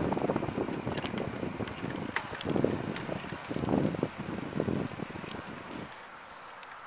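Longbikes Slipstream recumbent bicycle rolling on an asphalt trail: rumbling ride noise in uneven swells with small rattles and clicks, easing off about six seconds in.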